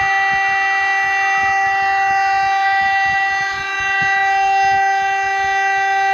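Siren sounding the Czech 'fire alarm' signal: a loud, steady tone held at one pitch, dipping briefly in level about three and a half seconds in.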